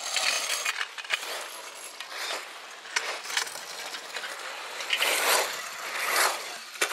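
1/8-scale HoBao Hyper 7 electric buggy running on a loose dirt track: bursts of gritty, crunching noise from its tyres scrabbling over the surface, loudest about five to six and a half seconds in, with a sharp knock just before the end.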